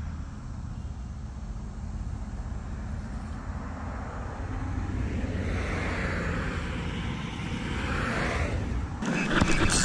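Road traffic running steadily, with a vehicle passing by: a swell that builds from about halfway and fades just before the end. Short clicks near the end are the loudest sounds.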